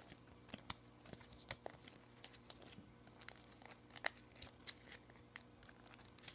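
Faint, irregular crinkles and rustles of a sheet of paper being folded and creased by hand.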